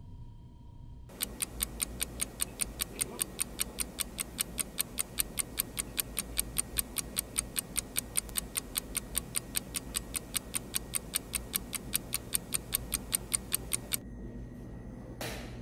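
Fast, even clock-ticking sound effect, a stopwatch-style tick that starts about a second in and stops abruptly near the end, with a brief whoosh just after.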